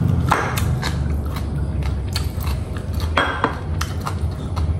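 Someone eating: utensils clicking and clinking against a dish several times, with chewing, over a steady low hum.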